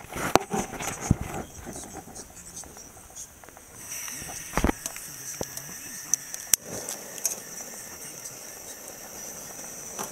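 A propane camp-stove burner being lit with a long-nosed lighter. Clicks and knocks of handling come first; about four seconds in the gas catches with a low thump, and the burner then gives a steady hiss of flame. Crickets chirp in the background.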